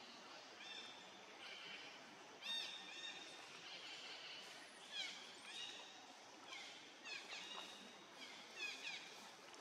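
Faint high-pitched animal calls, short chirps repeated every second or so, several of them falling sharply in pitch, over a soft steady hiss.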